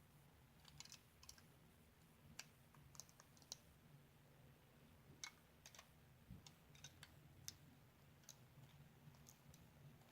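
Near silence broken by faint, irregular light clicks and ticks, a few to several a second.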